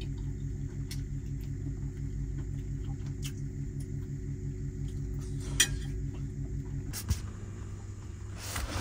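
A vehicle engine idling with a steady low hum that stops abruptly about seven seconds in. A few light clinks of chopsticks on dishes sound over it.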